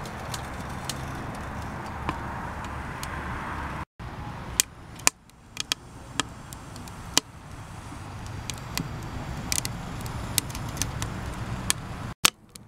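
Wood fire burning in a homemade mini-keg wood stove: a steady rushing noise for about four seconds breaks off suddenly, then sharp, irregular pops and snaps of the burning wood.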